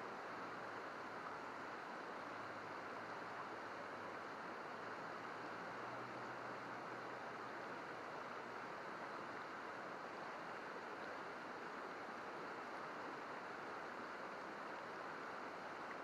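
Shallow mountain river babbling over rocks in a riffle: a steady, even rush of flowing water.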